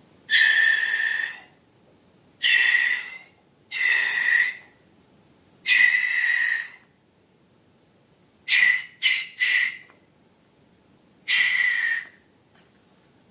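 Air squealing out of a balloon's stretched neck in eight short releases, each a steady high whistle over a hiss of air. Three of them come in quick succession about two-thirds of the way in.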